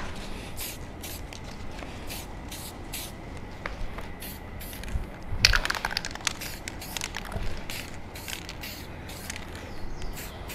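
Aerosol lacquer spray can hissing in a string of short bursts as a light coat goes onto a wooden stool seat. A louder cluster of clicks and knocks comes about five and a half seconds in.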